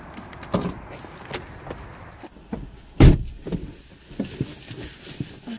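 A Mini Cooper convertible's door being opened with a few light clicks, then pulled shut with a heavy thump about three seconds in, followed by small knocks as the driver settles into the seat.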